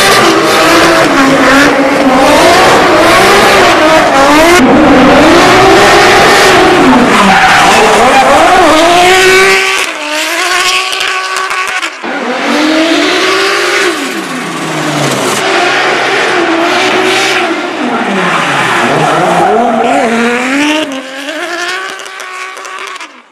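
2JZ-swapped car's engine revving up and down over and over as it spins donuts, with tires screeching on concrete. The sound drops in level about ten seconds in, breaks off briefly, then the same rising and falling revs return.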